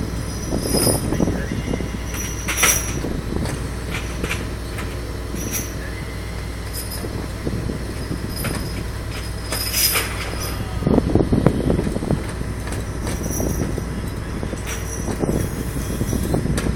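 Heavy cargo-handling machinery unloading a Shinkansen car: a steady low engine drone with scattered sharp metallic clinks and squeaks, and a louder rumble about eleven seconds in.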